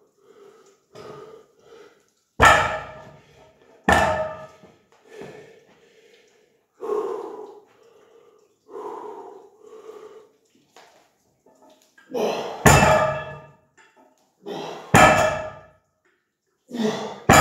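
Loaded weight plates on a Rolling Thunder grip handle clanking down onto the floor again and again during one-handed lifts of 60 kg, each loud clank with a brief metallic ring. Softer, duller sounds come between the loud clanks.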